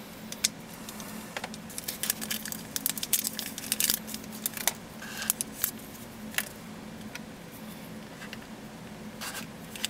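Hands handling a cleaning swab and small plastic parts: a scatter of sharp clicks and crinkling rustles, busiest from about two to six seconds in, over a faint steady hum.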